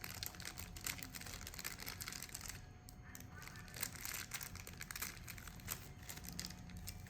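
Plastic takeout packaging crinkling and rustling as it is handled, with many small irregular crackles and clicks.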